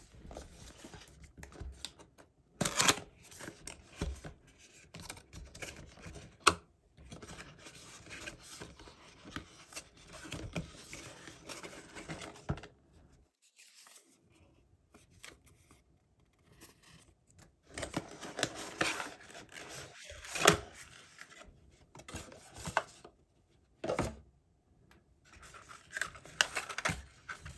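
Hands unboxing a microphone: packaging rustled, scraped and torn open, with a few sharp clicks and knocks of parts being handled and set down.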